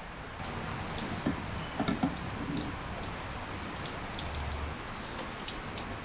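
Water from a hose running and spraying inside a tank through its hatch, a steady hiss, with a few light knocks of the hose and fittings.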